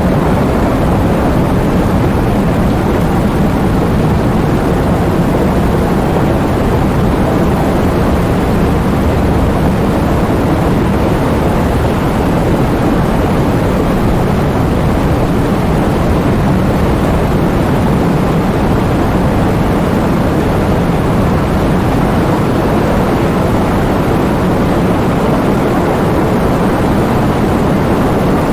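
Heavy rainfall: a loud, steady, dense hiss, heaviest in the low range and unchanging throughout.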